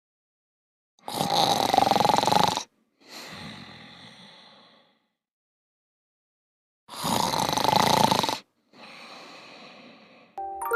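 A person snoring loudly, twice: each snore is a loud in-breath of about a second and a half, followed by a softer, longer out-breath. Pitched mallet-percussion music starts just at the end.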